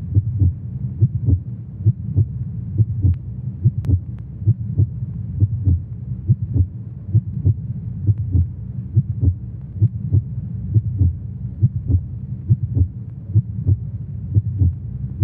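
Heartbeat sound effect: steady double thumps, a little under one beat a second, over a low steady drone.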